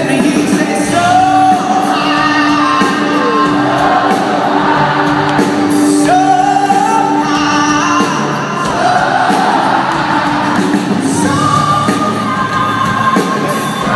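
Pop-rock band playing live through a concert sound system, with a male lead singer's voice gliding over a held low note.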